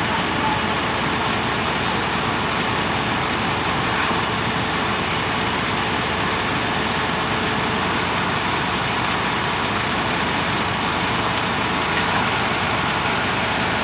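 Schwing concrete pump truck's engine running steadily, with no change in speed.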